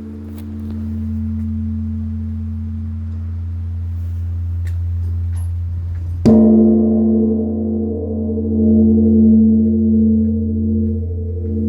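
Large Korean Buddhist bronze temple bell (beomjong) ringing with a deep hum, struck again with its wooden striker log about six seconds in; the fresh ring swells and ebbs in slow pulses as it sustains.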